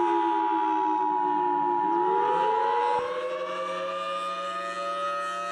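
Civil defense siren wailing, its pitch falling and then rising again a little under two seconds in. It plays under the two steady tones of an Emergency Alert System attention signal, which cut off suddenly about three seconds in.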